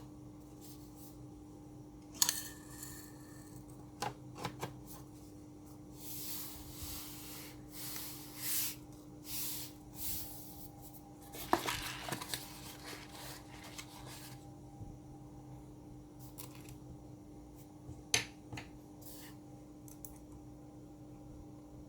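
Sharp little clicks and taps with stretches of rustling and scraping as a MacBook Pro's parts are handled and refitted during reassembly, over a steady low hum.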